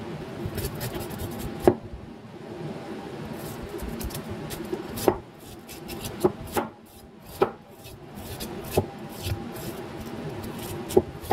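Kitchen knife shaving the fibrous husk off a raw bamboo shoot: a continuous scraping, rubbing sound, with a sharp chop on the cutting board every second or two.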